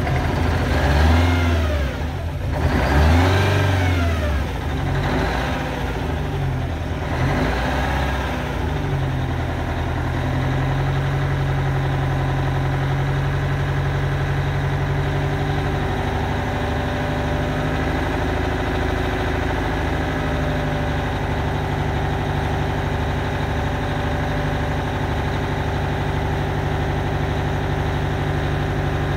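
Peterbilt 359's Detroit Diesel 8V92 two-stroke V8 just after a cold start, blipped up and down four times in the first eight seconds, then settling into a steady idle.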